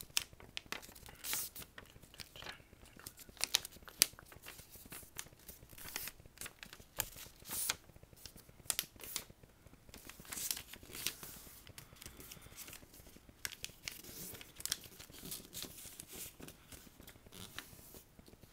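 A paper airplane being folded in half and its creases pressed flat by hand, making irregular paper crinkles and rustles with scattered short crackles.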